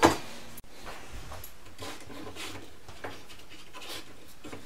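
Quick, steady panting breaths, about two a second.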